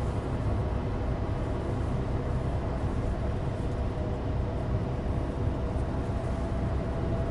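Steady interior noise of a moving 2016 Suzuki Alto Turbo RS (HA36S, 4WD): a low, even rumble of the engine and of studless winter tyres on dry asphalt, with a faint steady hum above it.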